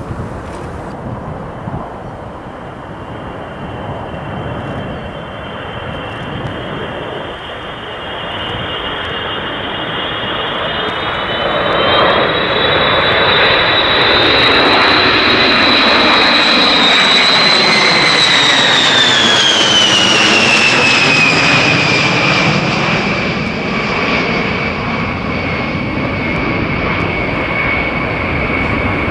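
B-52 bomber's eight turbofan engines on a low pass: broad jet engine noise with a high turbine whine that grows louder until the middle, then drops in pitch as the aircraft goes by and settles lower.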